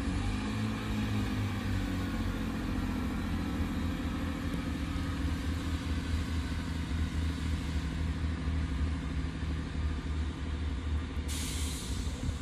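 Class 165 Networker Turbo diesel multiple unit pulling away from the station, its diesel engines running under power with a steady low drone.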